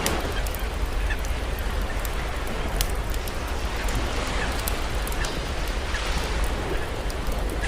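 Campfire crackling with scattered sharp pops over the steady wash of ocean surf.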